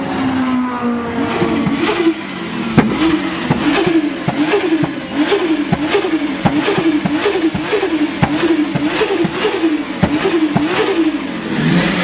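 Turbocharged car engine revs dropping away, then blipped over and over, about two quick rises and falls of revs a second, each blip ending in a sharp crack.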